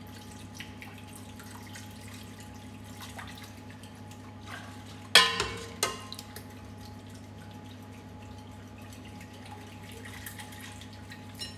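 Warm milk being ladled from a stainless steel pot and dribbled into beaten egg yolks while a wire whisk clicks in a glass bowl, tempering the eggs for a custard. A metal ladle clanks sharply against the pot about five seconds in, the loudest sound, with a smaller knock just after. A steady low hum runs underneath.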